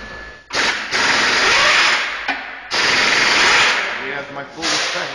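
Power tool rattling against a bus wheel hub in two bursts of over a second each and a short third burst near the end, with men's voices in between.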